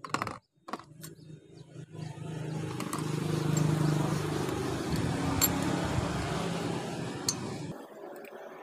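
A few light metal clinks, then an engine running steadily with a low hum that cuts off suddenly near the end.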